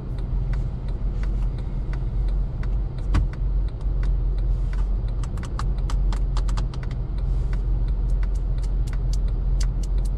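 Steady low hum of a car idling while parked, heard from inside the cabin. From about halfway through, many small sharp clicks and taps come in quick succession.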